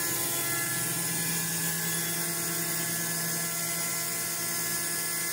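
ALUP COMBI GE 15 rotary screw air compressor with an 11 kW motor, running steadily just after start-up as it builds pressure in the receiver: a steady high whine with an airy hiss.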